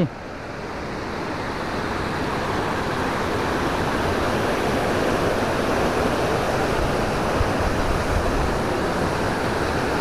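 Steady rushing of a waterfall and its cascades, growing gradually louder as they are approached.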